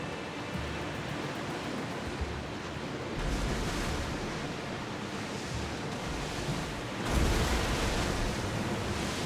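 Sea waves washing steadily, with two bigger surges of water, one about three seconds in and a louder one about seven seconds in.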